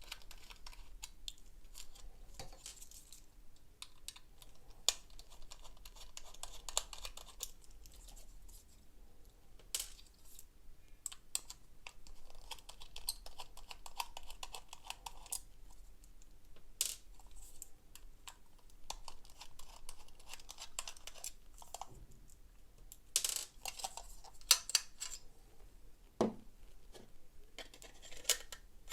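Small screws being undone with a screwdriver on a laptop hard drive's metal mounting bracket: scattered light clicks and scrapes of the screwdriver and of small metal parts being handled. A denser run of sharper clicks comes a little past two-thirds of the way in, followed shortly by a single knock.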